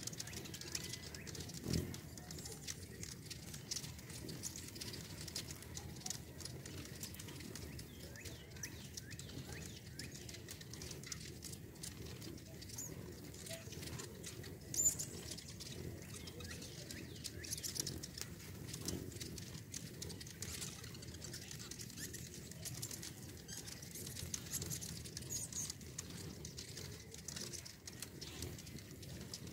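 A crowd of hummingbirds chasing one another around nectar feeders: constant rapid, high-pitched chips and squeaks over a steady whir of wings. One sharper, louder squeak comes about halfway through.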